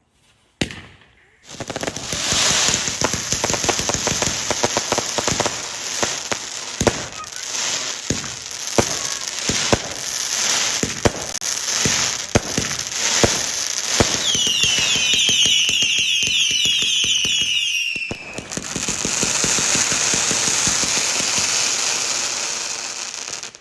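Fireworks going off: dense crackling with many sharp bangs, then a burst of many overlapping falling whistles about two-thirds of the way through, then a steady hissing spray that cuts off near the end.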